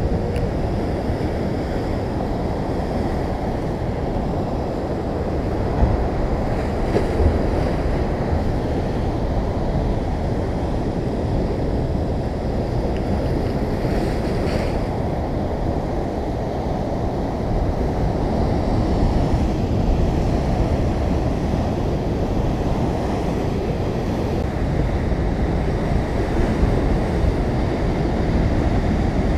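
Ocean surf breaking and washing over a rocky shore in a steady, continuous rush, with wind buffeting the microphone.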